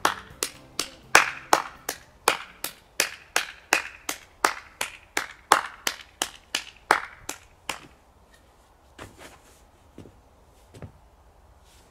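A single person clapping slowly and evenly, about three claps a second, with a slight echo. The claps stop about two-thirds of the way through, followed by a few faint scattered claps.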